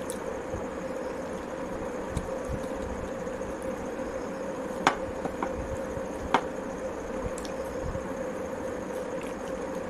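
Steady background hum as food is eaten by hand, fingers mixing rice and curry on a plate and mouth chewing, with two sharp clicks about five and six and a half seconds in.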